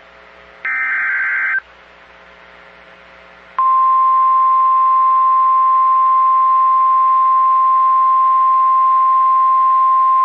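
Emergency alert signalling from a NOAA Weather Radio warning broadcast: a one-second buzzy burst of SAME digital header data, a pause of about two seconds over a low hum, then the steady single-pitch 1050 Hz warning alarm tone that starts loud and holds. The sequence marks the start of a new severe thunderstorm warning.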